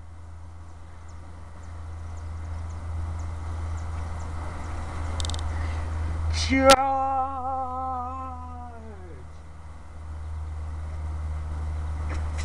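About six and a half seconds in, a sharp click, then a person's voice holds one long wavering note for about two and a half seconds, sliding down in pitch as it fades. Under it, a steady low rumble.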